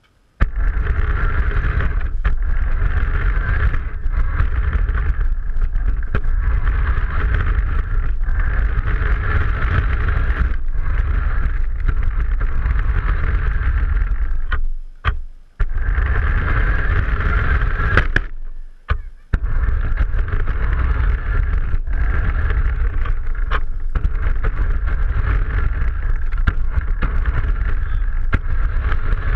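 Remote-control car driving over rough paving, its motor and tyres heard through the camera mounted on the car as a loud, steady rumbling whir with occasional knocks. It starts moving about half a second in and pauses briefly twice, about midway and a few seconds later.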